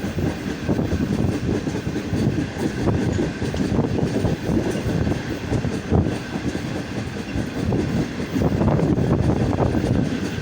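Passenger train running on the track, its wheels rumbling and clattering over the rails.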